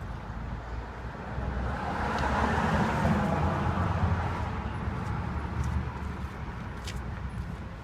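A car passing on the road: tyre and engine noise that swells to a peak about two to three seconds in, then fades away.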